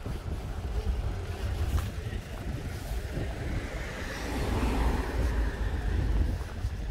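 Wind buffeting the microphone over street traffic, with a car passing that swells and fades a few seconds in.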